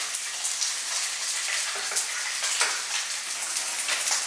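Two whole crucian carp frying in hot oil in a pan over medium heat: a steady sizzle with scattered sharp crackles and spatters.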